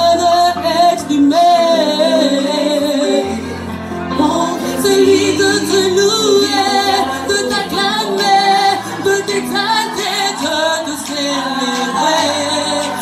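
Two women singing a gospel song live into microphones, with an electronic keyboard holding sustained chords and bass notes underneath.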